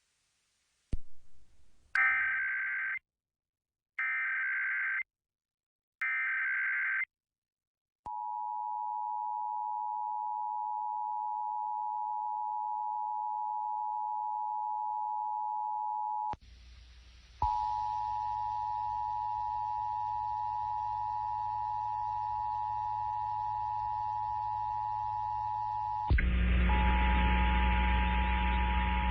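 Emergency Alert System tones broadcast over AM radio: three one-second bursts of SAME digital header data tones about two seconds apart, then the steady two-tone EAS attention signal. The attention tone cuts out briefly about halfway through, and a loud hum and static come in under it near the end.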